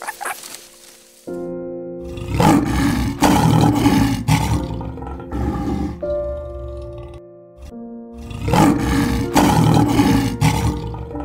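A large animal calling in two rough, pulsing bursts of about three seconds each, some six seconds apart, over background music with steady held notes.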